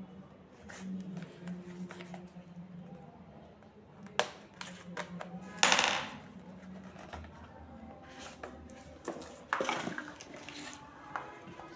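Handling noises from a smartphone box being unboxed: scattered clicks, taps and scrapes of cardboard and plastic, with a louder rustling burst about halfway through and another near the end.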